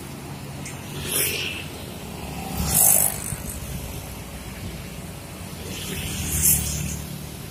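Road traffic passing close by: a low, steady engine drone from buses and cars, with three louder swells of vehicles going past, about a second, three seconds and six and a half seconds in.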